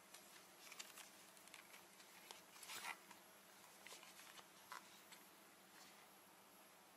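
Faint handling sounds of a motocross goggle: scattered light clicks and rustles of the plastic frame, strap and foam being flexed, with a slightly louder scrape about three seconds in.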